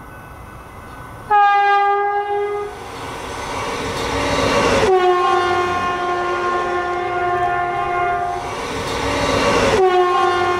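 Stadler FLIRT diesel multiple unit sounding its horn as it approaches and passes: a short blast, then a long one whose pitch drops as the train goes by. The horn is accompanied by the rumble of the engine and wheels on the rails.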